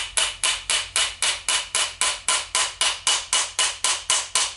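Light, rapid hammer taps, about four a second, driving the armature shaft of a Makita 3708FC router into its new ball bearing, each tap with a faint metallic ring.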